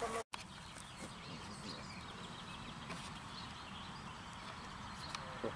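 Steady outdoor background noise with a few faint bird chirps, broken by a brief complete dropout in the audio just after the start.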